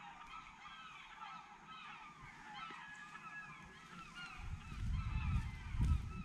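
A flock of gulls calling over and over, many short cries overlapping. A low rumble comes in about four seconds in and grows louder.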